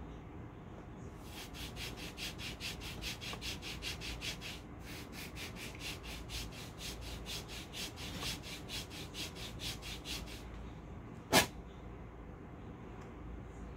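A hand rubbing a cold wax hair-removal strip down onto the shin: quick, even strokes of about four a second, with a short break partway through. About eleven seconds in, one sharp, loud rip as the strip is pulled off the skin.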